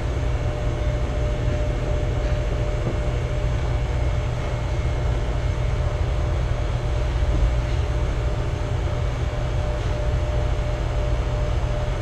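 Steady machinery drone with a rush of moving air: a deep hum underneath and a faint steady whine, unchanging throughout.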